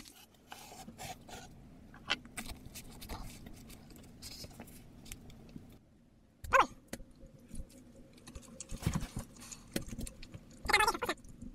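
Soft clicks and scrapes of a metal fork and a wooden spatula against a frying pan and plate. A short rising whine comes about halfway through, and more whining calls start near the end.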